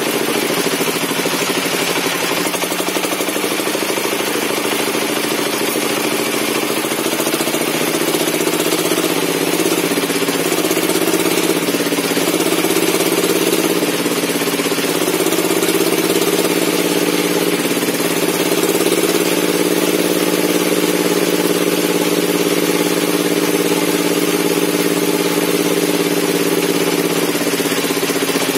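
Circular saw bench running steadily while cutting log offcuts, its pitch dipping and wavering slightly through the middle as the blade takes load.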